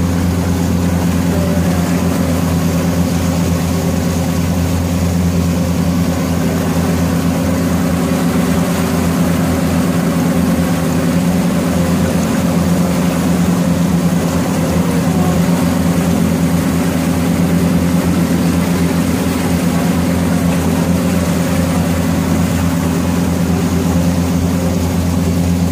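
Inboard diesel engine of a wooden abra water taxi running steadily at cruising speed, a constant low hum that does not change.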